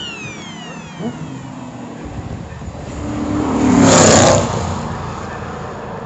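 A racing car passes at speed, its engine and tyre noise swelling to a loud peak about four seconds in, then fading. Near the start, the engine note of a car that has just gone by drops in pitch as it moves away.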